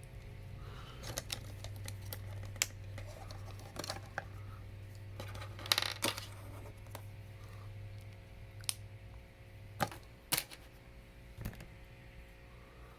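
Hard plastic Lego Hero Factory pieces clicking and snapping together as a figure is assembled: scattered sharp clicks, with a short rattle of them about six seconds in, over a faint low hum.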